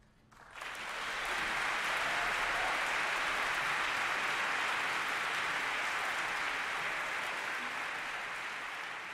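Audience applauding, breaking out suddenly about half a second in, holding steady, then slowly dying down near the end.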